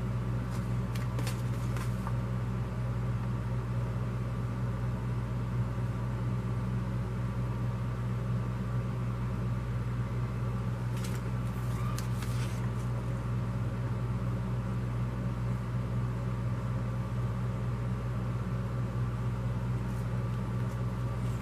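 Steady low hum of background noise, with a few brief rustles of glossy paper flyers being handled about a second in and again around eleven to twelve seconds in.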